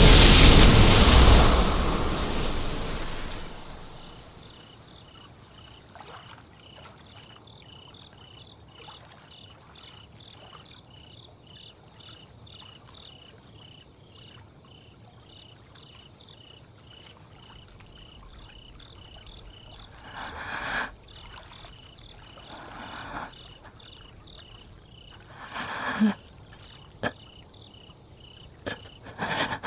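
A loud rushing noise fades out over the first few seconds, leaving a quiet ambience of faint, evenly repeating chirping, about two a second, like night insects or frogs. A few short, sharp sounds break in during the last ten seconds.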